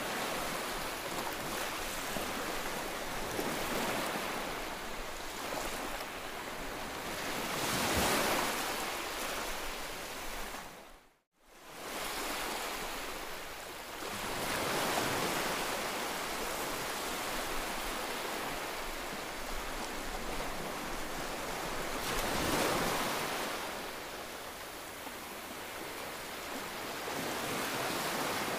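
Small waves breaking and washing up on a sandy shore, the surf swelling and fading every several seconds. The sound cuts out for a moment about eleven seconds in.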